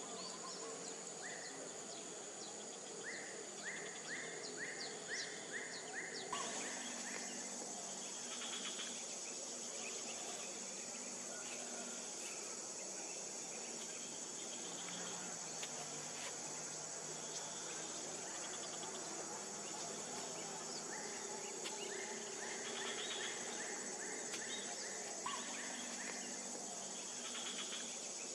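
Steady, high-pitched insect chorus that jumps louder about six seconds in. Twice, a run of short, evenly repeated chirps, two or three a second, sounds over it: in the first few seconds and again a few seconds before the end.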